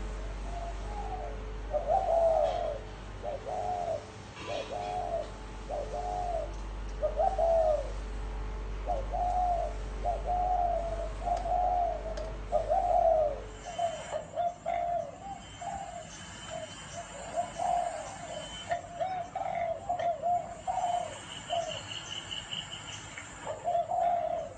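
Spotted dove cooing over and over, a steady series of low, arched coos a little more than one a second. A low hum underneath stops about halfway through, and from there the coos come quicker and in closer runs.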